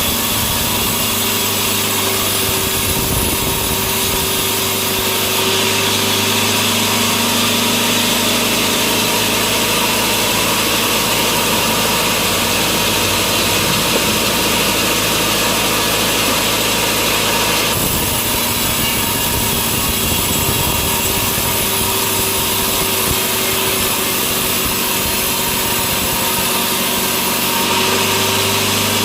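Sawmill machinery running, a steady motor hum under a hiss that grows louder about five seconds in, drops back at about eighteen seconds and rises again near the end.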